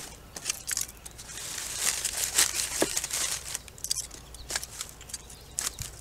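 Split birch kindling being laid into a fire pit: sharp wooden clicks and knocks as the pieces are set down, with crumpled newspaper rustling and crinkling, loudest about two seconds in.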